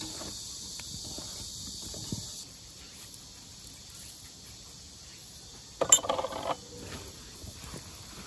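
Hands tossing napa cabbage kimchi with chili-pepper seasoning in a stainless steel bowl, making soft scattered rustles, over a steady high chirring of insects that drops away about two and a half seconds in. About six seconds in comes a short, louder clatter.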